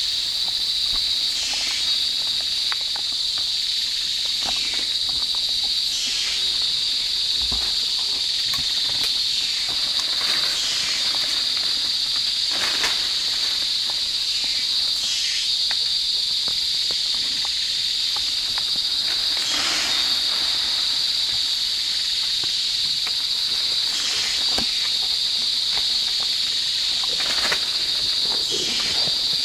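Tropical rainforest insect chorus: a steady high-pitched drone, with a louder call swelling out of it about every four to five seconds. A few faint clicks and snaps are scattered through it.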